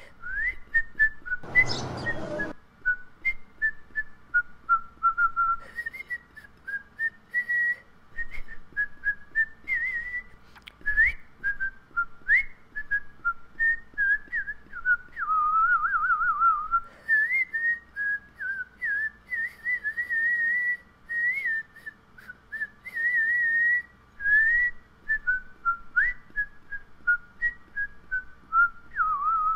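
A person whistling a melody: a single clear tone that slides and warbles up and down, with quick trills. A short burst of rushing noise comes about two seconds in.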